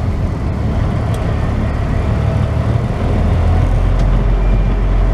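Semi truck's diesel engine running at low speed, heard from inside the cab as a steady low hum.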